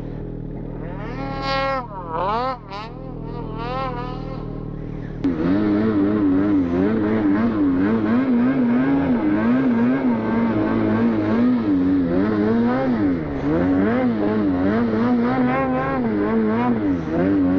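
Snowmobile engines revving in deep powder. First another sled is heard further off, its pitch sweeping up and down. About five seconds in, the rider's own snowmobile engine takes over loud and close, its revs rising and falling constantly as it ploughs through deep snow.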